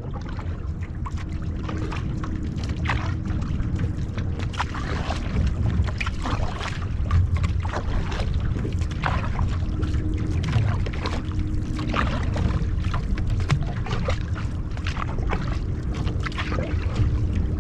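Water splashing and rushing along an outrigger canoe being paddled, with repeated short splashes of paddle strokes about once a second over a steady low rush of water and air on the microphone.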